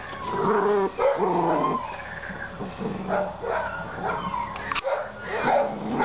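Seven-week-old Dutch Shepherd puppy yipping and whining in short, pitch-sliding bursts while it grips and tugs a jute bite sleeve.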